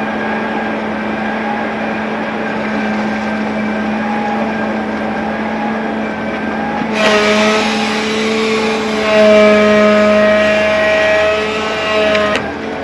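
Heavy earthmoving machine's diesel engine running steadily. About seven seconds in, a higher whine and hiss join it for about five seconds, then stop suddenly.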